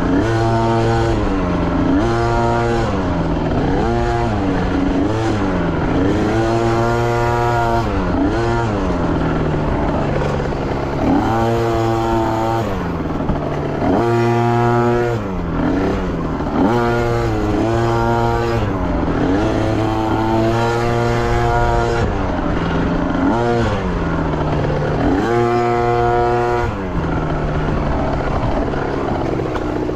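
Dirt bike engine being ridden hard on a trail, revving up and backing off over and over, with the throttle opened and closed every second or two and a few longer held pulls, over a steady lower engine drone.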